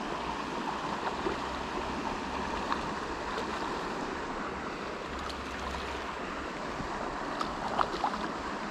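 Steady rush of a shallow, rocky river flowing over stones, with a few brief ticks near the end.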